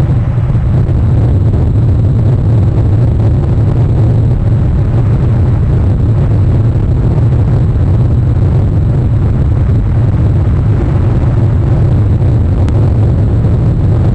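Rain and wind on an outdoor webcam's microphone, making a loud, steady low rumble with no separate events.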